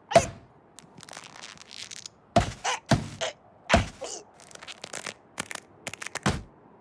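Cartoon slapstick sound effects: a string of sharp knocks and thuds, a second or so apart, with a run of quicker light taps near the end.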